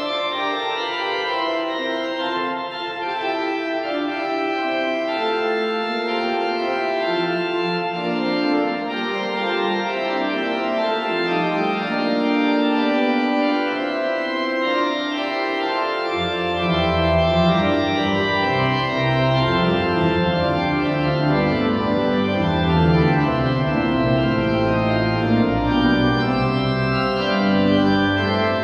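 Pipe organ, the 1969 Förster & Nicolaus instrument, playing a Baroque F-major piece with several interweaving lines. A low bass line joins about halfway through and the sound fills out.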